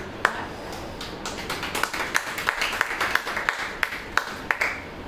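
Plastic water bottles handled while water is poured from one into the other: a run of irregular sharp clicks and taps of plastic, with a light trickle of water near the end.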